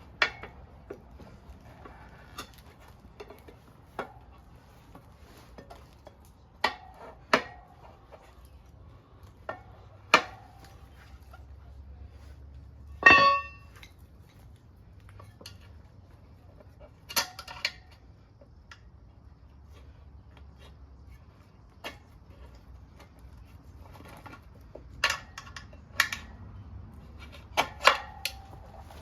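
Steel flathead screwdrivers clinking and clanking against a motorcycle wheel rim while prying a dry-rotted tire off it. The metal knocks come at irregular intervals, with one loud ringing clang about 13 seconds in.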